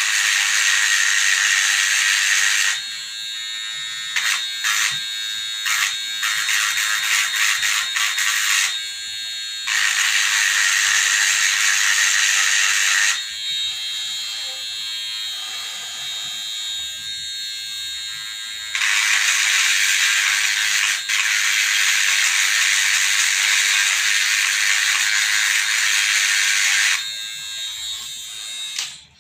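Harsh electric buzzing from a small handheld device, in three long bursts of several seconds each, with quieter stretches of crackling clicks between them.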